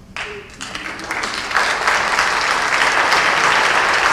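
Audience applauding, swelling over the first second and a half to full, steady applause.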